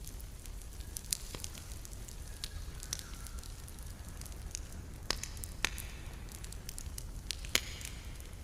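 Wood campfire crackling, with sharp, irregular pops throughout; a few louder pops come about a second in, twice near the middle and once near the end. A steady low rumble runs underneath.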